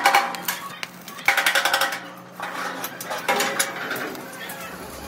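Chipping hammer rapping on fresh welds in a sheet-steel rickshaw body, knocking off slag. Three flurries of quick metallic clinks with a short ring: one at the start, one about a second and a half in, and one a little after three seconds.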